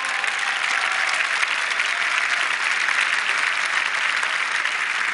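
Large audience applauding steadily, a dense even clatter of many hands clapping.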